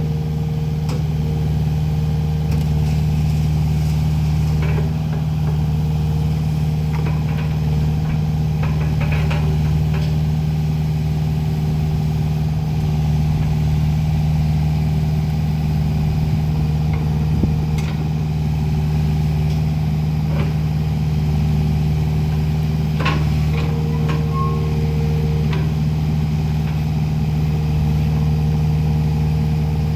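Kubota KX057-4 mini excavator's diesel engine running steadily, with a few scattered clicks and knocks.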